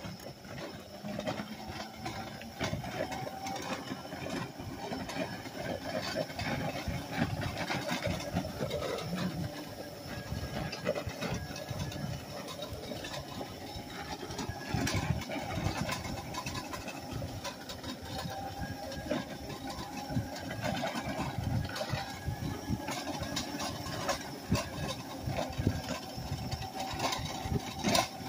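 Power Wheels ride-on toy car's electric motors and gearbox whining steadily under load while towing a trailer, with frequent clicks and rattles from the wheels and trailer on the tarmac.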